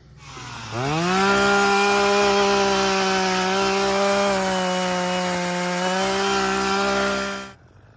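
Echo two-stroke chainsaw revving up quickly and running at full throttle, cutting wood, with a steady high engine note that sags slightly under load before cutting off suddenly near the end.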